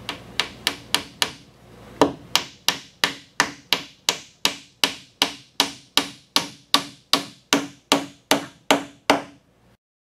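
Ball-peen hammer driving a glued wooden dowel into a drilled hole in a wooden table leg. There are a few light taps, a short pause, then a steady run of harder blows about three a second, each with a short ring, stopping just before the end.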